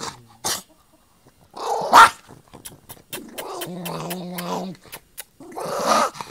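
Dog growling and snapping while guarding its food: a short sharp snarl-bark about two seconds in, a low steady growl from about three to five seconds, and another snarl near the end.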